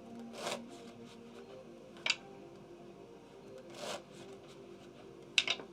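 Playing cards handled on a baccarat table: two short swishes of a card sliding and two sharp taps, over faint steady background music.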